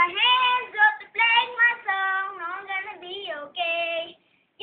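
A boy singing unaccompanied: several phrases with long held notes that waver in pitch, breaking off shortly before the end.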